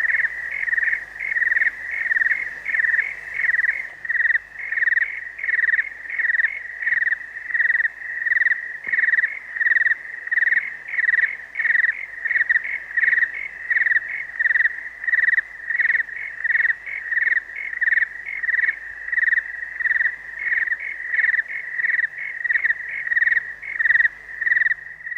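Crickets chirping as a night ambience sound effect: one steady, high-pitched chirp repeating about one and a half times a second, which cuts off suddenly at the end.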